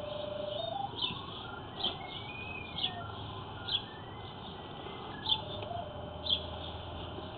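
An electronic tone that climbs and falls in even stepped notes and holds steady between the climbs, with a short high chirp about once a second.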